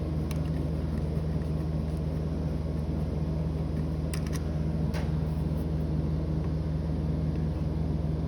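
A steady low hum from a running motor or appliance, with a few faint clicks near the start and around four to five seconds in.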